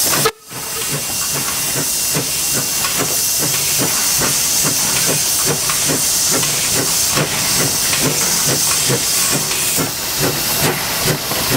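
Steam locomotive NM25 hissing steam as it moves slowly, with a steady run of soft regular beats about four a second. The sound breaks off briefly just after the start.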